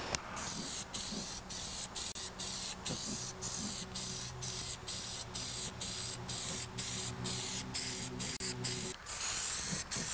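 Aerosol spray-paint can spraying paint onto a steel tractor fender in short, repeated hisses, about three a second, with brief gaps between them.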